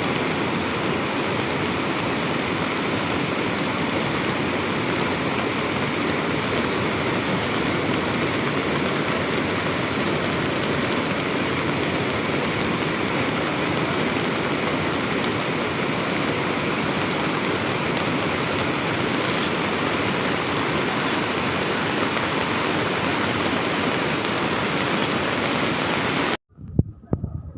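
A steady roar of rushing floodwater, which cuts off suddenly near the end.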